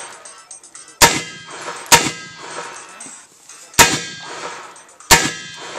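Four pistol shots at uneven spacing, about a second to two apart, each followed by a brief ringing tail, likely from steel targets being hit.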